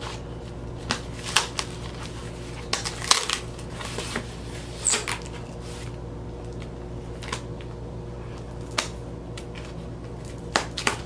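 A cardboard vinyl-record mailer being handled and opened by hand: scattered taps, scrapes and rustles of stiff cardboard, a few at a time with pauses between, over a faint steady hum.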